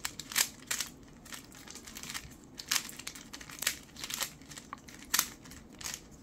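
Plastic Rubik's cube being twisted to scramble it: irregular sharp clicks and clacks of its layers turning, about two a second.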